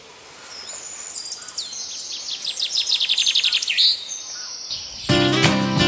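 A songbird singing one phrase: a high, quick run of repeated notes that speeds up and ends in a short flourish. About five seconds in, strummed acoustic guitar music begins.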